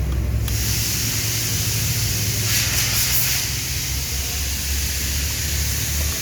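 Car engine idling with a steady rushing hiss of air that comes on suddenly about half a second in and swells briefly around the middle.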